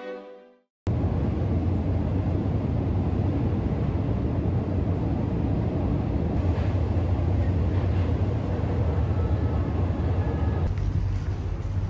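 Inside a moving metro train car: a steady rumble and rolling noise with a strong low hum. About a second before the end it turns brighter, with clicking and rattling.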